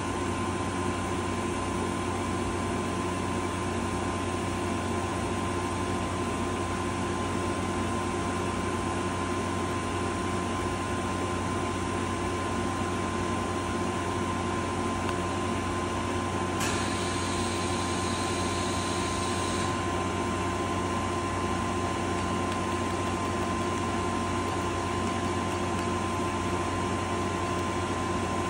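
Citizen L12 CNC Swiss-type lathe running with a steady machine hum and a few fixed tones. About seventeen seconds in, a hiss starts suddenly, lasts about three seconds and cuts off.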